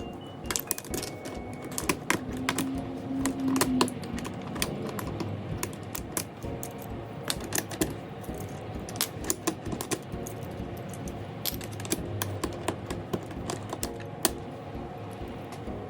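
Mechanical keyboard clicking: many quick, irregular plastic clicks and clacks from the keys and keycaps of an Ajazz AK820 Pro, with soft background music.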